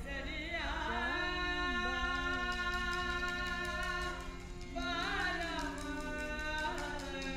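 Live Rajasthani folk music: a voice sings long held notes with ornamented turns, new phrases starting about halfway through and again near the end, over instrumental accompaniment and a light, even percussion beat.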